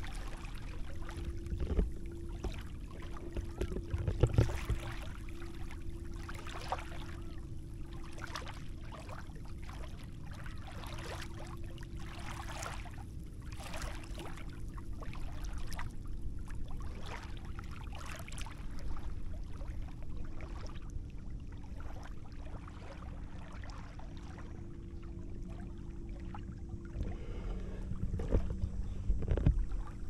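Small sea waves lapping and splashing at the shore in quick, uneven washes, over a low steady rumble and a faint steady hum.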